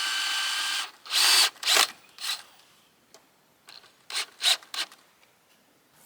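A small power tool, drill-like, runs for just under a second with a steady motor whine. It is followed by short noisy bursts in two groups, three about a second in and three more near four seconds in.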